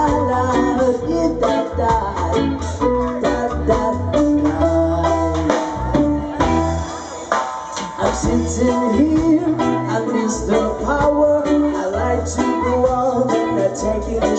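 Live band playing an instrumental break of a pop song, with guitar over a steady beat.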